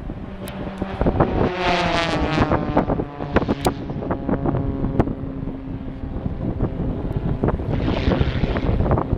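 Display aircraft engine droning overhead, its pitch falling as it passes about two seconds in, then holding a steady drone, with wind buffeting the microphone.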